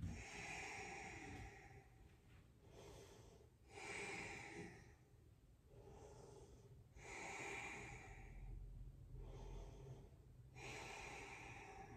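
Faint, slow breathing of a person holding downward dog in yoga: long audible breaths in and out, alternately stronger and weaker, about four strong ones with softer ones between.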